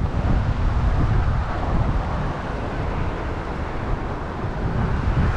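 Wind buffeting the microphone over choppy open water: a steady low rushing.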